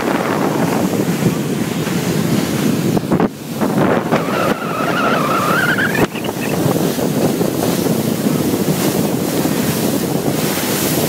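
Wind buffeting the phone's microphone and water rushing past the hull of a motor cruiser under way, a steady loud rush. About four seconds in, a brief tone rises in pitch for a couple of seconds.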